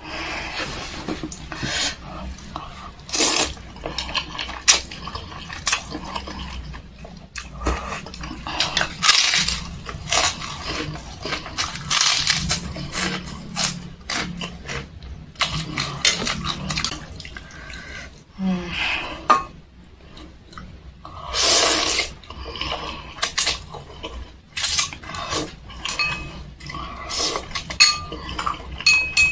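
Close-up eating sounds: slurping chicken noodles, chewing, and crunching a kerupuk cracker, with many short clicks of chopsticks against a stainless-steel bowl.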